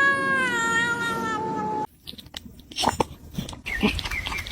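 A cat giving one long, drawn-out meow that slowly falls in pitch and cuts off abruptly about two seconds in, followed by scattered light clicks and knocks.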